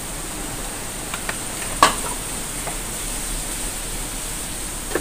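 Steady background hiss with one sharp knock a little under two seconds in, and a couple of faint ticks just before it.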